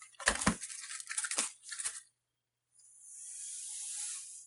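Crinkling, rustling handling noise with a few light knocks as ribbon rolls are unpacked, then a smoother hissing rustle near the end.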